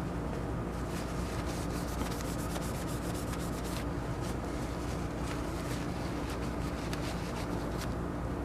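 Quick, repeated scraping and scrubbing strokes of a cleaning tool working gunpowder fouling out of the inside of a Beretta 92FS pistol slide, over a steady low hum.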